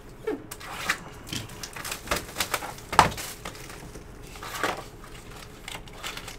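Cardboard hobby box of trading-card packs being handled and opened: scrapes, rustles and light knocks of cardboard, with one sharp knock about three seconds in.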